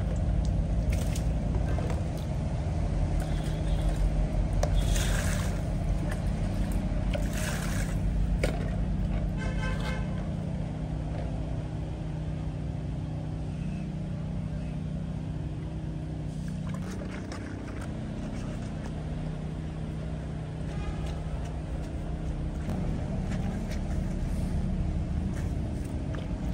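Clothes being washed by hand in plastic basins of water, with splashes, drips and sloshing as wet cloth is lifted and rubbed. A steady low motor-like hum sits under it and changes pitch about two-thirds of the way in.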